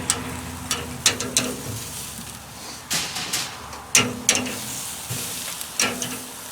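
Grilled skirt steaks being handled with tongs and set on foil: about ten short, sharp clicks and clacks at irregular intervals over a faint sizzle.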